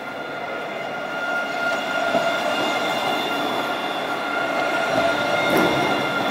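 Alstom Citadis tram passing close by: a steady high whine over the rumble of steel wheels on rail, growing louder about a second and a half in.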